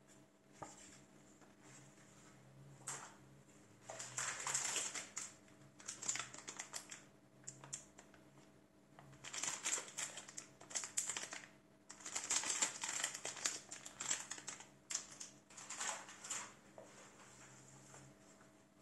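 Handling noise from unboxing a motherboard's accessories: paper card stock and plastic packaging rustling and crinkling under gloved hands, with light clicks, in several spells of a second or two separated by quieter moments.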